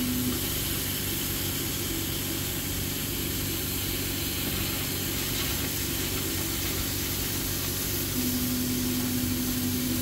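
A CO2 laser cutter running while it cuts thick plywood: a steady hiss from its fans and air flow, with a low hum that drops out shortly after the start and comes back about eight seconds in.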